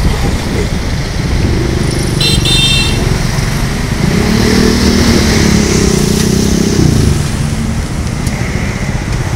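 Motor traffic heard from a small vehicle moving through congested city traffic: a steady engine and road rumble, with an engine rising in pitch and holding from about four to seven seconds in. Two brief high beeps sound about two seconds in.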